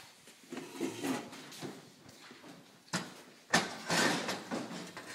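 Rustling, scraping and knocking as parts and tools are handled on a workbench, with two sharp clicks about three seconds in.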